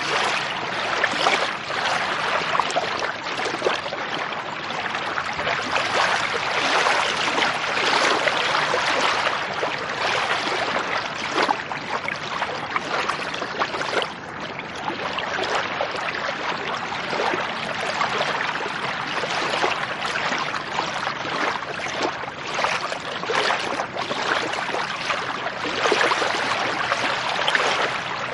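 Lake water splashing and sloshing: a steady, unbroken rush made of many small irregular splashes, swelling and easing slightly from moment to moment.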